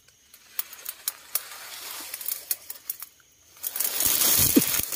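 Leaves and undergrowth rustling and snapping as a person creeps slowly through brush, then a loud burst of crashing rustle with thumps about four seconds in as he lunges into the bush to grab a snake by hand.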